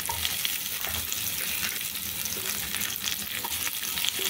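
Hot oil sizzling steadily with fine crackles in a kadai as chopped capsicum and onion are dropped into it on top of frying garlic and ginger.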